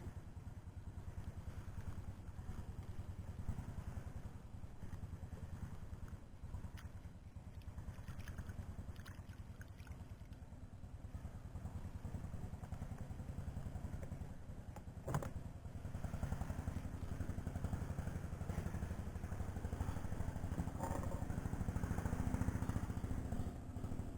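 Small engine running steadily with a fast, even firing rhythm, growing louder in the second half, with one sharp knock about fifteen seconds in.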